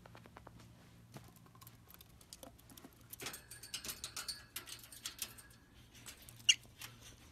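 Faint, scattered ticks and scratches of a small bird's feet moving over a floor and about its cage, with one short high chirp about six and a half seconds in.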